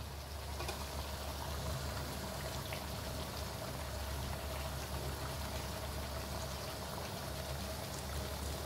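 Chicken pieces and tomatoes simmering in their own watery juices in a karahi: a steady bubbling hiss, with a few faint clicks.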